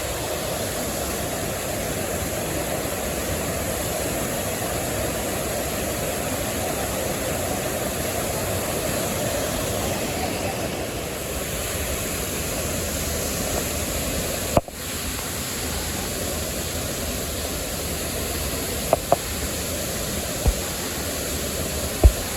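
Jōren Falls waterfall, water pouring steadily with an even rushing noise. There is a brief break about two-thirds of the way through, and a few sharp knocks near the end.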